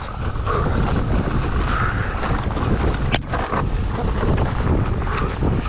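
Wind buffeting a GoPro action camera's microphone during a fast mountain-bike descent, with the bike running over the rough trail. A single sharp knock about three seconds in.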